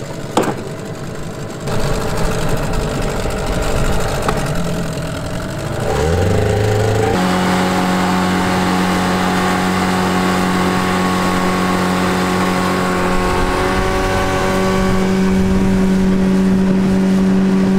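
Small outboard motor on an inflatable dinghy: it revs up about six seconds in, then runs at a steady high pitch, pushing the dinghy fast across smooth water.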